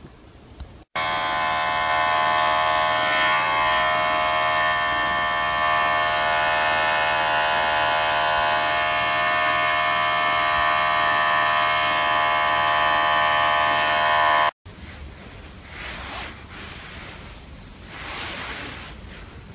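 Small electric pet hair trimmer running steadily with a high buzz while it trims the fur on a kitten's paw. It cuts off suddenly near the end, and fainter rustling follows.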